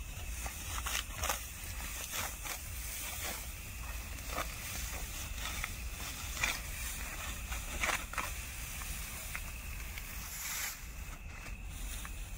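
Dry, ripe wheat stalks being cut by hand with a sickle: irregular crisp swishing crunches of the straw, about one a second, with rustling as the stalks are gathered.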